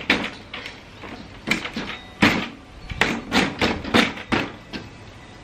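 Folding metal legs and frame of a Cabela's Deluxe camp kitchen clicking and clattering as they are swung out and snapped into place. The sound is a run of sharp, irregular metal clicks and knocks in two clusters, one about a second and a half in and one from about three seconds in.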